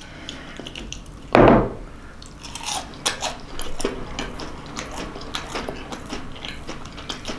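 Person chewing a mouthful of oyster mushroom dipped in hot sauce: many small irregular mouth clicks, with one short loud puff of noise about a second and a half in.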